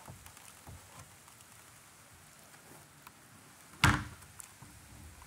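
Plastic wheeled trash bin being handled: a few light knocks, then one loud thunk about four seconds in.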